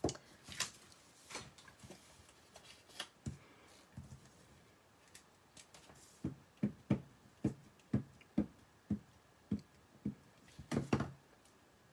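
Ink pad tapped repeatedly against a clear photopolymer stamp on an acrylic block to ink it: about ten short, soft taps, roughly two a second, in the second half. They follow a few scattered knocks of handling, and a louder cluster of knocks comes near the end.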